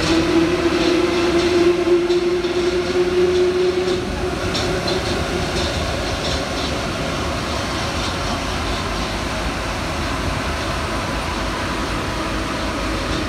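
Paris Métro MP73 rubber-tyred train running, with a steady motor tone over the running noise that fades out about four seconds in. After that the train carries on with steady running noise and a few sharp clicks.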